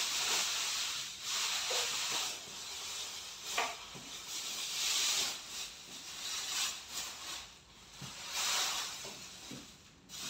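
Clear plastic wrapping rustling as it is pulled and gathered off a laser machine, in several swelling surges of hiss-like crinkle.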